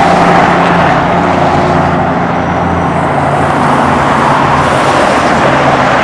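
Steady road noise of a car on a freeway: engine hum under constant tyre and wind noise.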